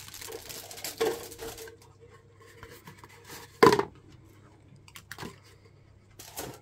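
Clear cellophane bag crinkling as a plastic model-kit sprue is slid out of it, then light handling knocks of plastic and cardboard on a tabletop. The loudest is a single sharp knock about three and a half seconds in.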